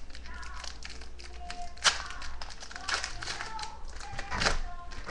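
Background music with held notes, over repeated light clicks and taps of hockey trading cards being handled and flipped through, with one sharp click about two seconds in and a short rustle near the end.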